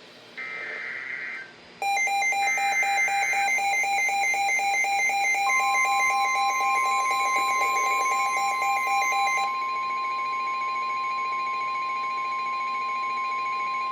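Emergency Alert System signalling: two short raspy digital SAME header bursts, then a loud, rapidly pulsing electronic alarm, joined about five seconds in by the steady single-pitch NOAA Weather Radio warning alarm tone (1050 Hz), which holds to the end. The tones announce a special marine warning.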